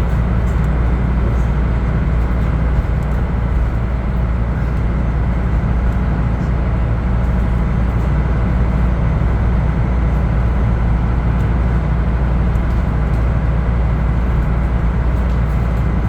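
Sightseeing cruise boat's engine running steadily, a constant low hum with no change.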